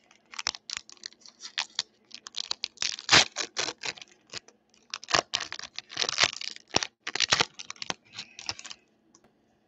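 Foil Pokémon booster pack wrapper crinkling and tearing as it is pulled open by hand, a rapid, uneven run of crackles that stops shortly before the end.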